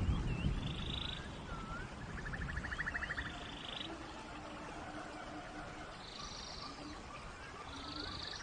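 Forest ambience full of animal calls: swooping whistles, rapid ticking trills and buzzy high notes, with low short calls repeating in a row, over a steady hiss of rain. A low rumble comes in the first second.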